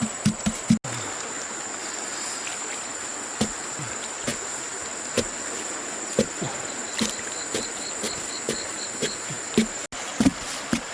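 Insects keeping up a steady high-pitched trill, with irregular soft knocks and thuds from handling things close by.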